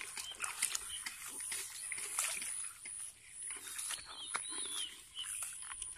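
Footsteps through wet grass and shallow puddles: a run of short rustles and splashes. A steady high-pitched whine runs behind them, and a few brief chirps come about four seconds in.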